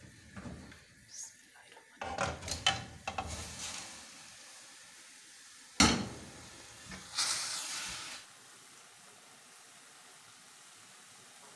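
Metal cookware clattering and scraping as steamed grated carrots are tipped into an aluminium kadai, with one sharp clank just before the middle, then about a second of steamy sizzling hiss as the hot, wet carrots land in the pan.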